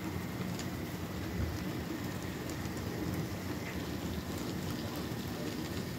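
HO scale model freight cars rolling slowly along sectional track, a steady low rumble of wheels on the rails with a few faint clicks.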